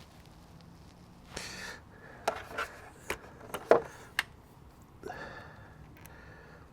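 A person breathing out heavily twice, with five or six sharp clicks and knocks of handling in between.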